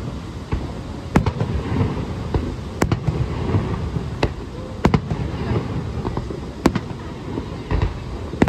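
Aerial firework shells bursting, a sharp bang every second or two, over a steady low rumble.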